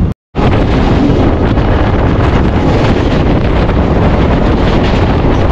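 Wind buffeting the microphone over the steady running noise of a moving train, loud and even, after a split second of silence near the start.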